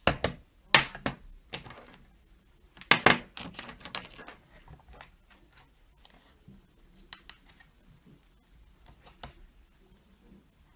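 Sharp clicks and knocks of a plastic blush palette and makeup brushes being handled, in quick clusters over the first four seconds, then a few lighter taps.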